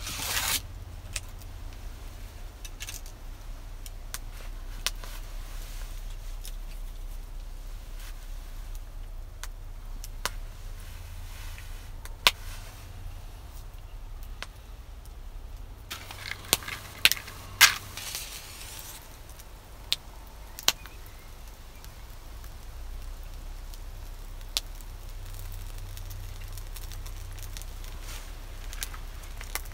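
Scattered metallic clinks and knocks of a cast-iron Dutch oven and its hanging chain being handled, with wood knocking as kindling is set on the lid; the loudest cluster comes a little past halfway. A low steady rumble runs underneath.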